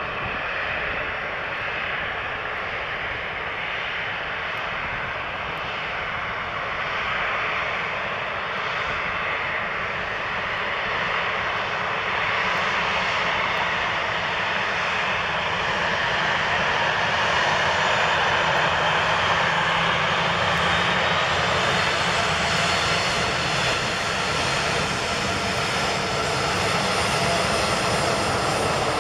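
Boeing 737-800's twin CFM56-7B jet engines running at taxi power as the airliner rolls slowly past at close range: a steady engine rush and whine that grows gradually louder as it nears.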